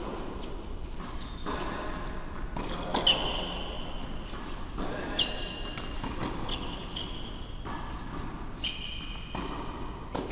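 Tennis rally on an indoor hard court: rackets striking the ball back and forth, a few sharp hits a couple of seconds apart, echoing in a large hall.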